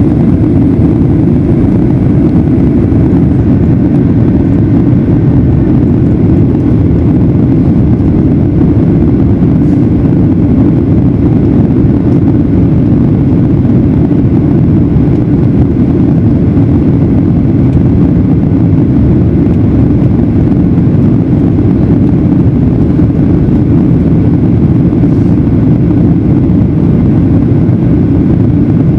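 Steady low rumble of a Boeing 737-900ER in flight, from its engines and the air rushing past, heard from inside the cabin. It is loud and unchanging throughout, with a faint high whine that fades out a few seconds in.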